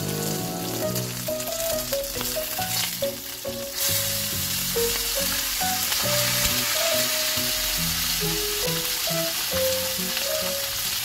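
Mackerel fillets sizzling in hot oil in a frying pan, the sizzle growing louder about four seconds in. Background music plays underneath.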